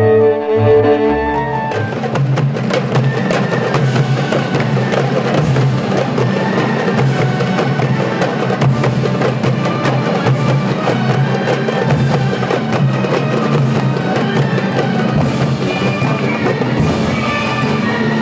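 A bowed string instrument holds a melody in maqam Nakriz, an Eastern scale, for the first second and a half. Then darbuka hand drums and other percussion take over with a fast, dense run of strikes, with pitched instruments sounding underneath.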